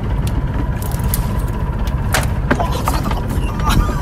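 A steady low rumble, with a few short sharp knocks and splashes as a fish is scooped out of the water in a landing net beside the boat.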